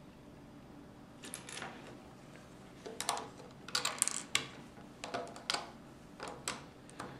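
Plastic Lego pieces clicking and clattering as they are handled and pressed onto a model car, in a string of short, sharp clicks that starts about a second in.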